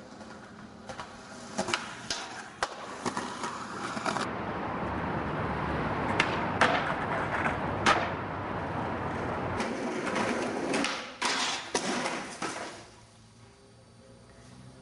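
Skateboard wheels rolling on concrete, broken by several sharp clacks of the board popping, landing and hitting the ground. The rolling and clacks stop about two seconds before the end, leaving it quieter.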